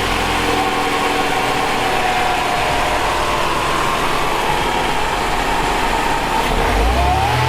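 Fiat Coupe 16V Turbo's turbocharged four-cylinder engine idling just after starting, its pitch easing slightly lower as the idle settles.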